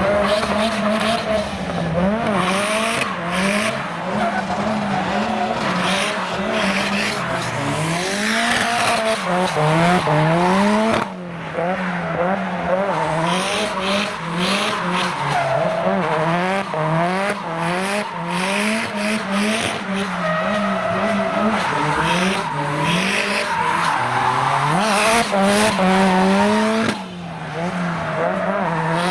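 Nissan S14's turbocharged SR20DET four-cylinder engine revving up and falling back again and again while drifting, with bursts of loud hiss from its external wastegate and tyre squeal.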